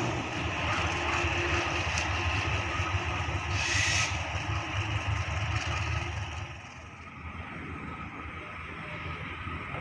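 A KAI diesel-electric locomotive running away along the track, its engine a steady low rumble that fades noticeably after about six and a half seconds. A short higher-pitched burst sounds about four seconds in.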